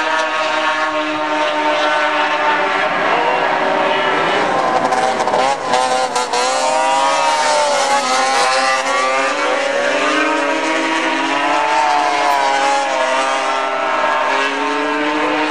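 Several racing snowmobiles' two-stroke engines running at high revs, their pitches rising and falling as the sleds accelerate and back off around the oval.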